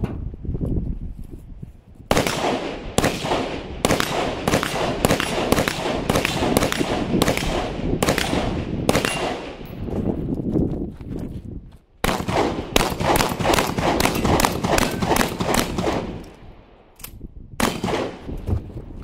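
A fast string of gunshots, about two a second with an echo trailing each, quickening to three or four a second for a few seconds before a break about 16 s in. Shotgun blasts start again near the end.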